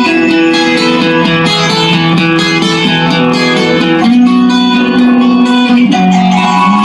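Instrumental music led by plucked string notes, with held low notes underneath and the notes changing every second or so. There is no singing.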